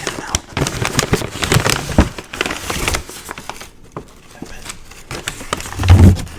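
Paper food wrapping crinkled and handled close to the microphone, loud dense crackling for about three seconds, then softer rustles, with a low thump near the end.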